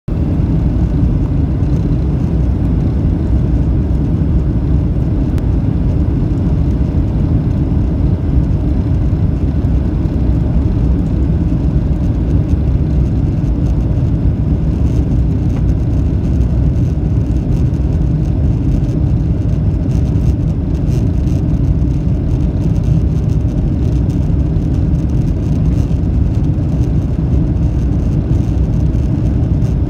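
Steady low rumble of jet engines and rushing air heard inside the cabin of a Boeing 737 descending on approach with its flaps extended.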